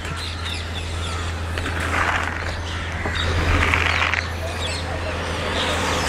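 A flock of birds calling together, with many short overlapping chirps and squawks. Two louder patches of rustling noise come about two and four seconds in.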